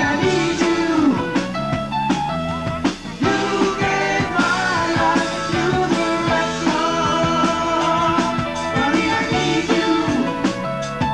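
Rock band playing live, with drums and guitar under a lead singer's voice.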